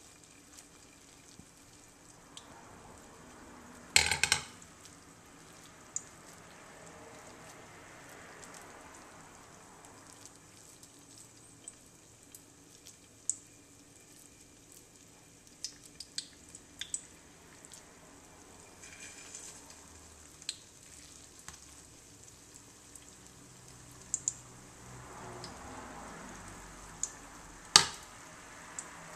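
Mackerel croquette frying in oil in a skillet, a faint steady sizzle, while hands work the croquette mixture in a plastic bowl with scattered small clicks. Two sharp knocks stand out, the loudest about four seconds in and another near the end.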